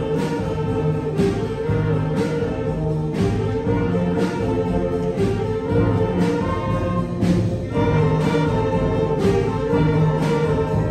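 Seventh-grade concert band playing, with held wind and brass chords over a percussion stroke about once a second.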